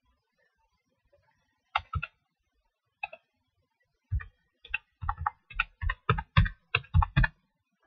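Keystrokes on a computer keyboard: a few scattered strokes, then a quick run of about a dozen near the end as text is typed.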